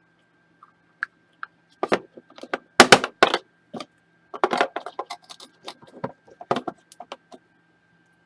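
Packaging being handled as a pack of football trading cards is opened: quick clusters of crackles and clicks, loudest about three seconds in.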